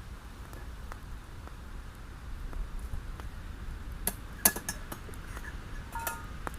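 Metal cookware and utensils clinking a few times, with one short ringing clink near the end, over a steady low rumble.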